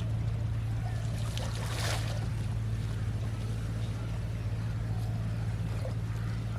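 A steady low hum runs under faint water and outdoor noise, with a brief splash of water about two seconds in.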